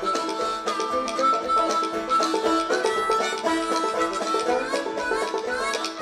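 Background music: an upbeat string-band tune of quick plucked notes under a held melody line that slides in pitch.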